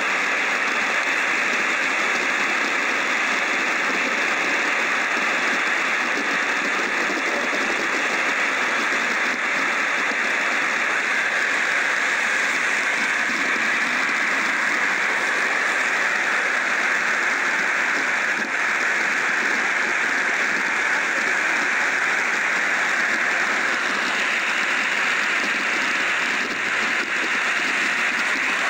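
Steady rushing noise of water pouring over Niagara's Horseshoe Falls, even and unbroken.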